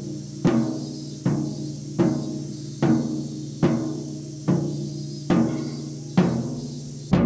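Background music with a slow, steady drumbeat, one stroke about every 0.8 seconds, over sustained low tones. It cuts off suddenly near the end.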